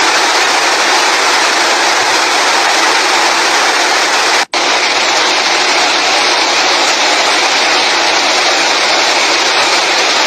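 Loud, steady rushing of floodwater and rain, cut off for an instant about four and a half seconds in.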